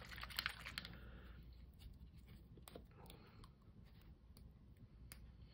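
Near silence: faint room tone, with a soft rustle and a few small ticks in the first second from hand craft work on a paper layout.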